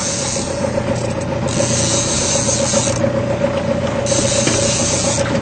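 Boat engine running steadily, with a fishing reel being wound in over it in spells, a grinding, ratchety whirr.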